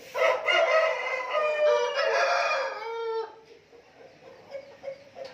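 A fighting rooster crowing once: one long crow of about three seconds that ends on a falling note.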